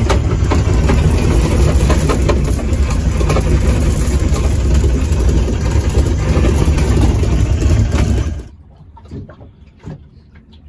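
Small fishing boat's outboard motor running under way, a loud steady low hum with wind and water noise over it. It cuts off abruptly about eight and a half seconds in, leaving quiet with a few light clicks and rustles of fishing tackle being handled.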